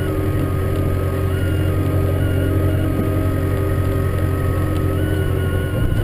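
Farm tractor's diesel engine running steadily under load while pushing a snow plough, heard from inside the cab as a constant low hum.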